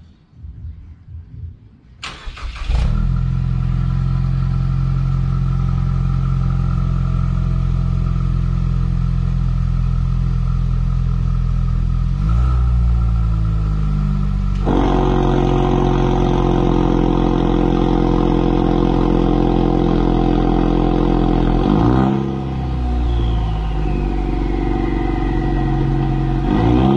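Ford Mustang 2.3L EcoBoost turbocharged four-cylinder starting through a Vandemon valved catback exhaust, then idling steadily. About halfway through the exhaust note abruptly turns fuller and harsher. Later there is a quick rev with a falling turbo whistle as it settles, and another rev right at the end.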